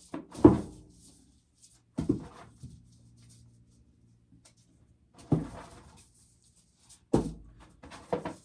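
Hand-shelling dried ear corn: a handful of sharp knocks, each trailing into a short rattle, a few seconds apart, as kernels and cobs are worked and knocked into a pail.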